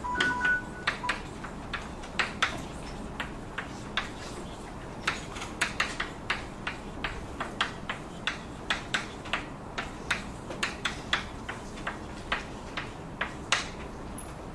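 Irregular sharp clicks and taps, a few a second, from a lecturer writing on a board. A short steady two-note tone sounds in the first second.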